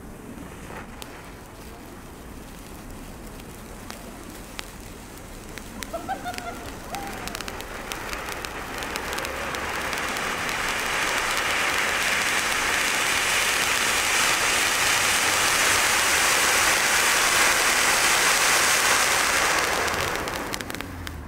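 A 3-inch cone fountain firework burning. There is faint crackling at first, then the steady hiss of its spark spray builds from about eight seconds in, with scattered crackles. It dies away just before the end.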